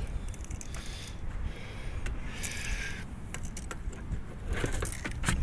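Wind rumbling on the microphone, with scattered clicks and scrapes from handling, several close together near the end.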